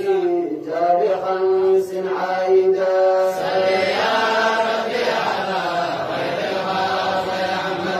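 A solo voice chanting an Islamic devotional song in praise of the Prophet Muhammad, in long held notes that bend up and down in pitch.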